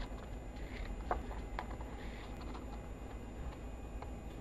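Scissors snipping through craft paper: a few separate short clicks as the blades close, over a low steady hum.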